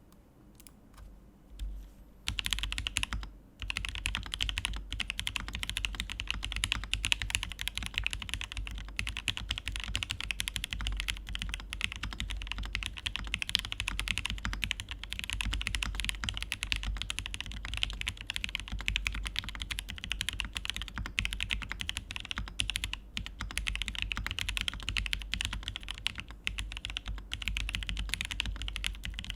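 Typing on a Praxis custom mechanical keyboard with Alpaca linear switches (lubed with 205g0 and filmed) on a POM plate with Zeal stabilisers. A few single keystrokes, then fast continuous typing from about two seconds in, with a brief pause shortly after.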